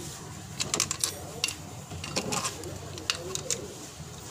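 Irregular sharp clicks and clinks in short clusters, as tools and car parts are handled, with faint voices in the background.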